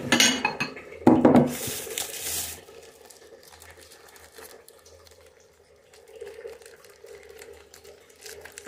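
Kitchenware clattering on a countertop, with two sharp knocks, one at the start and one about a second in, as a glass bowl is set out. Then a short burst of crinkling plastic bags as the bag of salsa is handled, followed by quiet fiddling.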